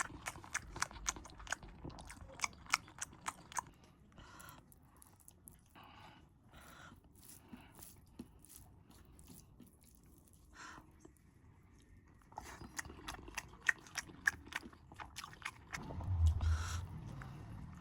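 Close-miked chewing and biting of beef, with bursts of quick, crisp crunching clicks that ease off in the middle and pick up again, and a louder low sound near the end.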